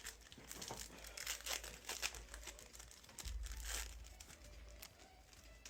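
Foil trading-card pack wrapper being torn open and crinkled by hand, a run of quick irregular rustles and rips, busiest between about one and four seconds in.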